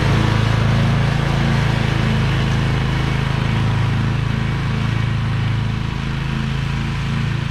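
Toro Titan zero-turn mower's engine running steadily under mowing load, with a low, even hum that grows slightly fainter as the mower drives away.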